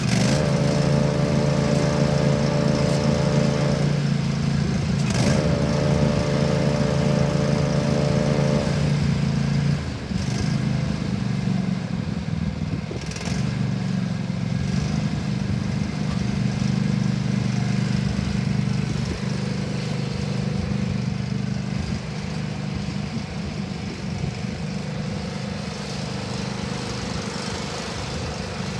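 The Cub Cadet LX46 XT2's 23 hp Kohler V-twin engine running steadily. A higher whine rides over it in two spells of about three and a half seconds each. At about ten seconds the whine is gone and the engine note drops a little.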